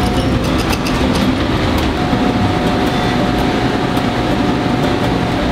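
Steady, loud mechanical noise: a dense rumble with a faint steady tone and scattered clicks.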